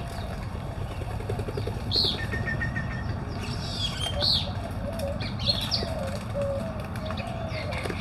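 Birds at feeders: short high chirps and calls, a brief buzzy trill about two seconds in, and wing flaps, joined in the second half by a low, wavering cooing of doves.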